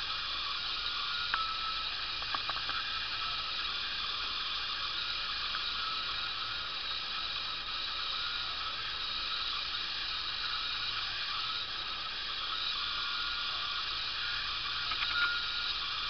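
Steady high hiss of background noise, with a few faint short chirps or clicks about a second in and near the end.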